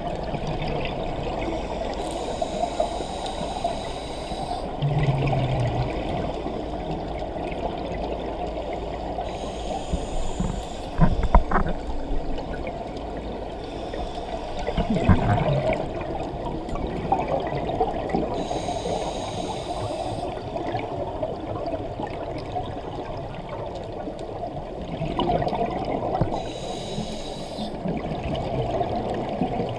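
Underwater ambience on a scuba dive: bursts of exhaled bubbles from a scuba regulator about every eight seconds over a steady hiss, with a few low thumps near the middle.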